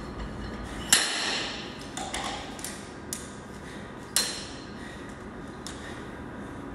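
Olympic barbell being loaded: about five sharp metallic clinks of weight plates and a collar knocking on the bar's sleeve, each with a short ring. The loudest come about a second in and about four seconds in.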